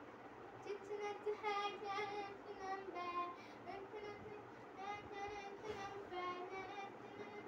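A girl singing a song into a pretend microphone, starting about a second in, holding notes with a slight waver in pitch.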